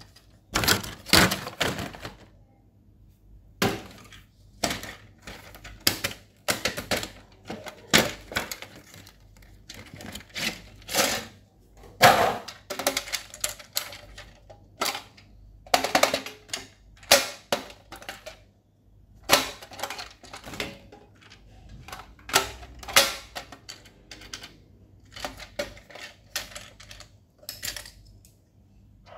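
Hard plastic stationery being handled: irregular clicks, taps and knocks, a few a second, as a plastic pencil sharpener and a plastic pencil case are turned over in the hands and the case's compartment is opened.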